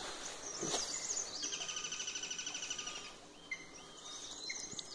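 Small birds singing: a fast, even trill of high notes starts about a second and a half in and lasts about a second and a half, with scattered chirps around it.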